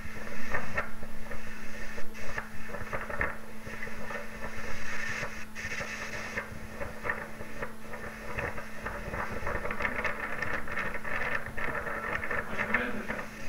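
Rough, crackling noise of storm wind and heavy breaking sea on a phone microphone aboard a rolling ship, over a steady low hum.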